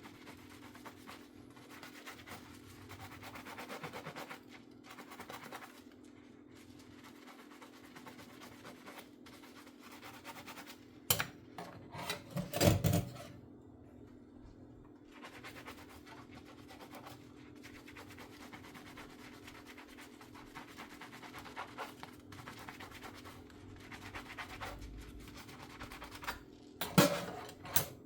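A sponge scrubbing a dish in hand dishwashing, a soft repeated rubbing and scratching. Sharp clinks of dishes knock about 11 and 13 seconds in and again near the end, over a steady low hum.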